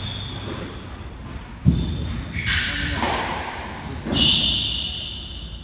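Squash rally: the ball thuds off rackets and walls, the loudest thud about a second and a half in, while court shoes squeak on the wooden floor, with a long, strong squeak about four seconds in.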